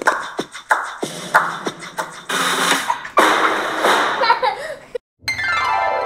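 Beatbox-style vocal percussion: sharp mouth-made hits with short pitched vocal glides. About five seconds in it cuts out for a moment, then a swoop of many tones starts falling in pitch.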